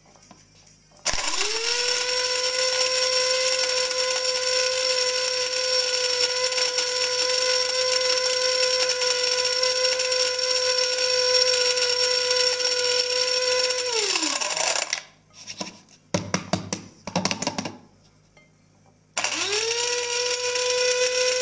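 Small electric blade spice grinder grinding whole spices, including whole nutmeg. Its motor spins up to a steady high whine, runs for about thirteen seconds and winds down. It then gives a few short pulses before starting again near the end.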